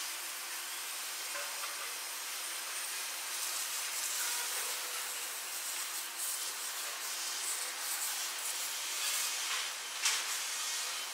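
Steady hissing background noise, with a few faint brief sounds and one sharp click about ten seconds in.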